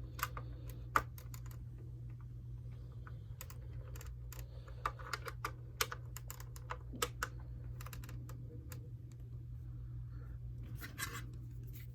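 Hard plastic toy jet parts being handled and pushed together: irregular small clicks and taps as plastic wings are tried in the fuselage slots, over a steady low hum.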